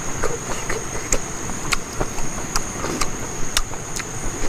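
Wet chewing and lip-smacking from eating rice and curry by hand, heard as short sharp smacks every half second or so. A steady high-pitched insect drone, like crickets, runs underneath.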